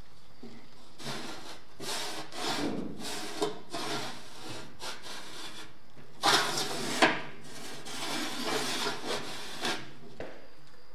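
Rusty steel vent damper on a barrel smoker's end cap being turned back and forth, scraping on the rusted lid in repeated strokes. The strokes are loudest about six to seven seconds in, with two sharp clicks.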